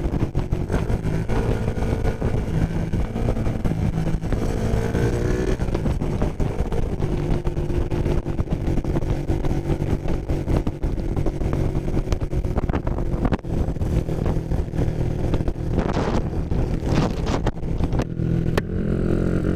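Motorcycle engine running on the move, its pitch shifting now and then with the throttle, over a steady rush of wind noise.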